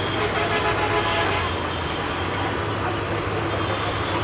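Metre-gauge diesel locomotive approaching with a passenger train: a steady engine hum under a continuous rumble.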